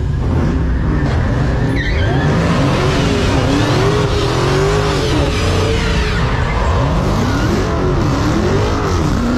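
Car tires squealing, the squeal wavering up and down in pitch, over a steady engine note.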